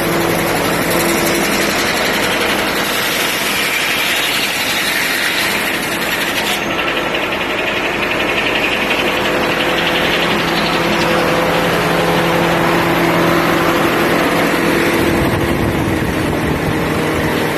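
International UD-14 diesel power unit running a Corley sawmill, a steady engine drone mixed with the mill's machinery noise. The higher hiss fades about seven seconds in, and a deeper rumble builds near the end.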